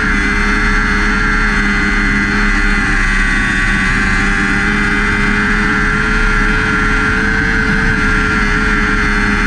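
Lightning sprint car engine running steadily at racing speed, recorded from a camera mounted on the car, its pitch rising and falling only slightly.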